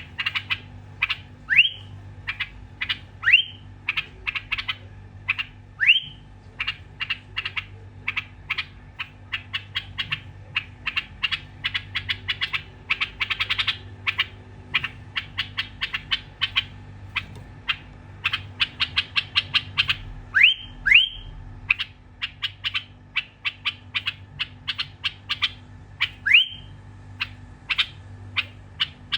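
A bulbul calling in long runs of short, sharp chips, several a second. Now and then a loud upward-sweeping whistle breaks in, and a faint steady low hum runs underneath.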